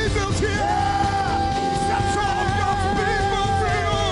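A man belting one long held high note into a microphone over instrumental accompaniment, the note starting about half a second in and wavering near the end.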